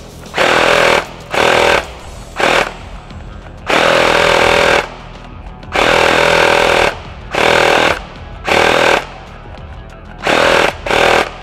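Upgraded M4-style airsoft electric gun (AEG) with a ZCI 16-turn motor firing bursts on full auto: about nine bursts, short and long, each a fast buzzing rattle of the gearbox cycling, the longest lasting about a second.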